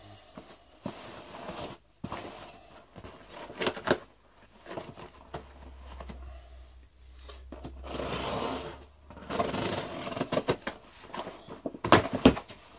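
Scissors cutting and scraping along the packing tape of a cardboard box, with rustling and clicks as the box is handled; a longer scraping rasp comes about eight seconds in, and a few sharp knocks near the end.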